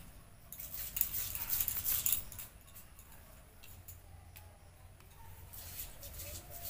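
Crisp cutting and scraping sounds of a small iron blade working through raw rat meat, loudest about a second in and again near the end.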